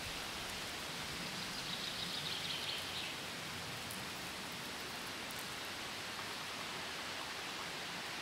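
Steady outdoor background hiss, with a brief high, finely ticking sound from about one and a half to three seconds in.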